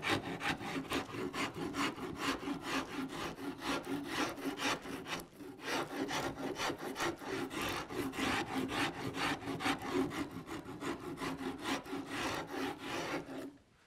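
Farrier's rasp cutting across the back of a wooden guitar neck in quick, rhythmic back-and-forth strokes, a rough scraping that repeats a few times a second and pauses briefly about five seconds in. It is shaping the neck's rounded back contour.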